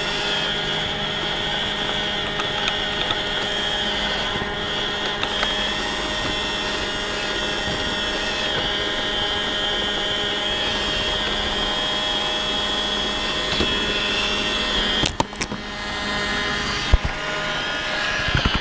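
iRobot Roomba robot vacuum running, its motor and brushes making a steady high whine over a low hum. A few knocks come near the end.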